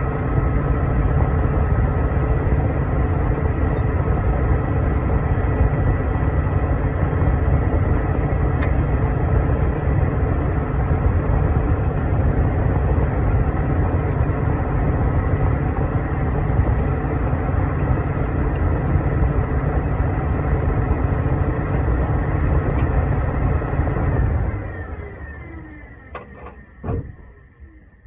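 Honda car running with its air-conditioning fan on: a steady motor drone with a thin high whine over it. About 24 seconds in it is switched off and winds down, followed by a few light knocks.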